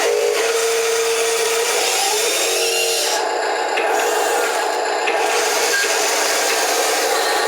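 Small wheel loader working soil on a slope: a steady motor whine with a continuous gritty scraping and rubbing. There is no deep engine rumble.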